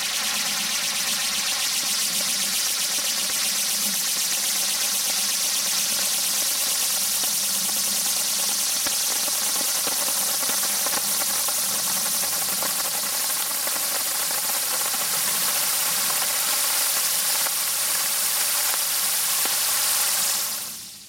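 Brillant-Wirbel ground spinner firework burning: a loud, steady hiss of sparks with a steady whining tone underneath. It dies away quickly near the end as the spinner burns out.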